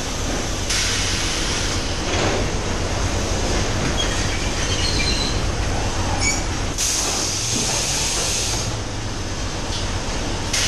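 Robotic palletizing line for 5-litre water bottle packs running: a steady machine rumble and hum from the roller conveyors and robot cell. Two long hisses cut through it, one about a second in and a stronger one past the middle, with a few faint clicks and short high tones between them.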